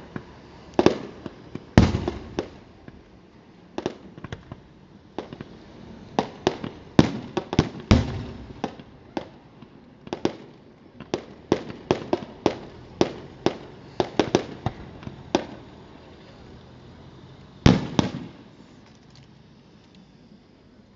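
Aerial fireworks going off: a rapid, irregular string of sharp bangs and crackling reports, with a loud boom about eighteen seconds in before the reports die down.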